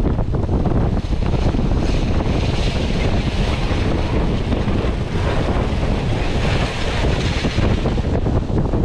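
Wind buffeting the microphone on the deck of a moving ferry: a loud, steady, gusting rumble. Above it, water and broken river ice rush past the boat in a hiss that swells twice.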